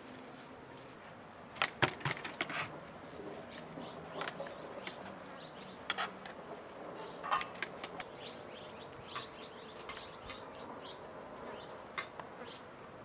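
Scattered sharp clicks and knocks, several in quick succession about two seconds in, with birds chirping in the background.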